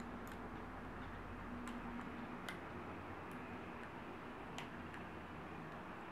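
Light, irregular clicks, about five of them, as a plastic hook picks and loops rubber bands over the pegs of a plastic bracelet loom, over a low steady hum.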